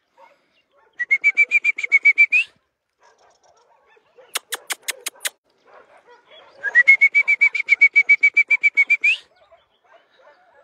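A rapid trilled whistle on one steady pitch, about ten notes a second and ending on a quick upward flick, sounded twice, with five sharp tongue clicks between: a man calling dogs.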